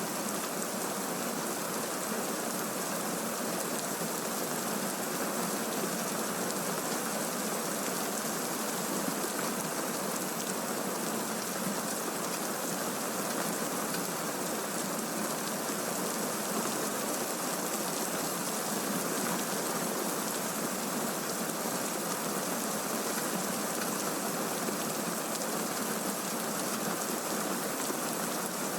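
Recorded rainfall: a steady, even hiss of rain with no thunder and no changes. It serves as the masking bed for subliminal affirmations mixed below hearing level.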